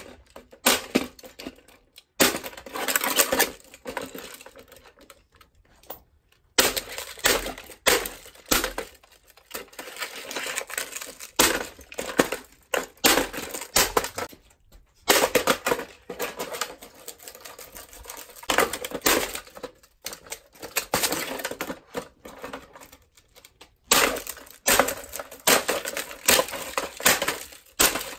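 Plastic Barbie toy cassette player being smashed again and again: repeated hard blows with plastic cracking and breaking, in clusters with short pauses between.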